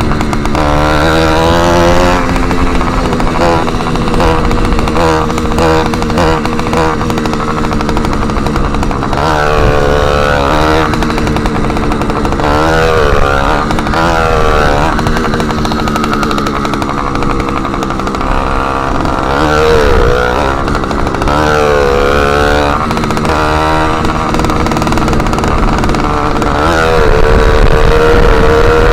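Motorized bicycle's small engine running loud through an exhaust with its end tip removed, its pitch rising and falling again and again as the throttle is opened and closed while riding.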